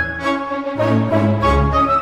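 Instrumental background music: a melody moving in steps over sustained low bass notes.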